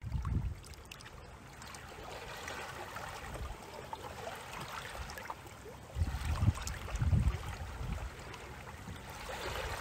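Wind gusting on the microphone over a steady wash of lapping and trickling water, with a few faint splashes and ticks. The strongest gusts come right at the start and again about six and seven seconds in.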